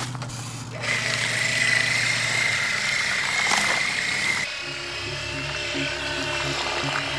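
Small brushed electric motor of a homemade RC boat whining steadily as the boat drives off across the water, starting about a second in. About halfway through, background music comes in.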